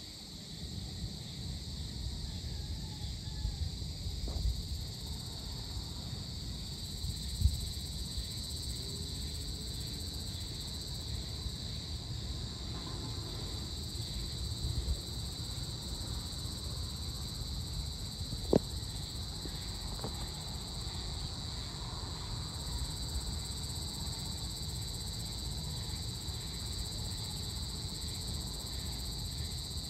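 Evening chorus of insects: a steady high-pitched trill over a low rumble, broken by a few sharp clicks, the loudest about 18 seconds in.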